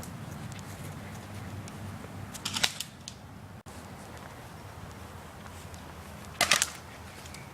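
Airsoft gun firing two short bursts of rapid shots about four seconds apart, over a low steady rumble.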